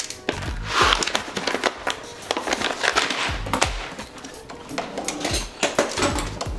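Background music with a bass beat, over the clatter of whole coffee beans poured from a bag and handled on a small digital kitchen scale.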